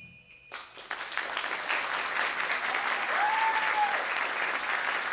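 Theatre audience applauding, breaking out about half a second in and holding steady, with one brief cheer from the crowd a little past three seconds in.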